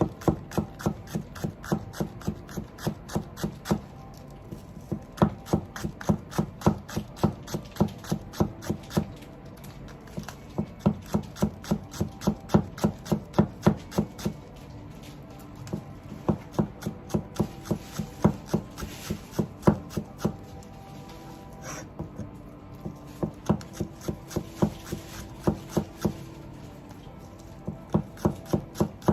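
Kitchen knife slicing green onions on a cutting board: quick, even chopping strokes at about four a second, in runs broken by short pauses.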